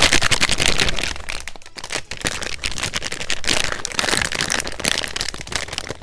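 Plastic packaging around a hard drive crinkling and crackling as it is handled and unwrapped close to the microphone, dense and irregular throughout.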